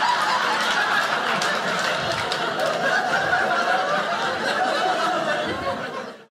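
Theatre audience laughing together at a stand-up comedy punchline, a sustained crowd laugh that cuts off abruptly near the end.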